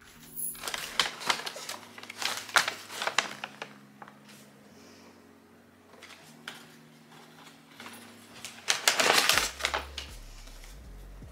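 Clicks and clatter of small hard household items being handled and set down, in quick runs about a second in and again, loudest, around nine seconds in.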